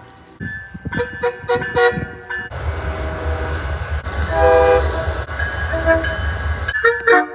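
MBTA commuter-rail locomotive horn sounding a chord in several short blasts. About two and a half seconds in, a passing train's low rumble starts under longer horn tones, and short blasts return near the end.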